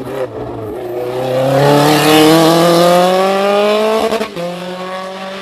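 Single-seater race car engine accelerating hard, its pitch climbing steadily for about three seconds. About four seconds in there is a brief break for an upshift, then it pulls on at a lower pitch.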